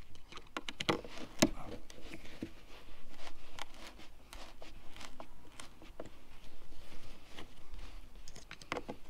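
Hand screwdriver driving screws to mount a retractable rod-strap housing on a boat's gunwale: irregular small clicks and scrapes of the tool and the strap's plastic hardware.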